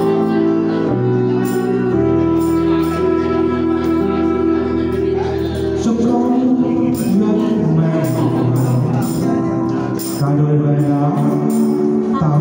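Live music from an electronic keyboard playing sustained chords, with a tambourine shaken and struck in time. About six seconds in, a man and a woman begin singing a duet over it.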